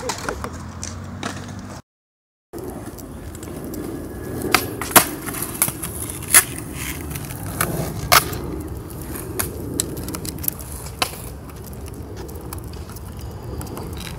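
Skateboard wheels rolling along a concrete sidewalk with a dog riding the board: a steady rolling rumble scattered with sharp clicks and knocks. The sound cuts out briefly about two seconds in.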